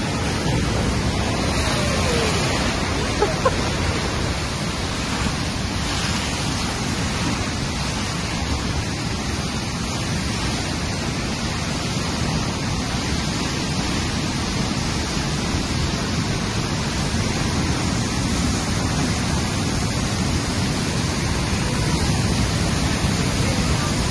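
South Fork Stillaguamish River in record flood, brown whitewater surging through a rocky gorge and rushing steadily and loudly.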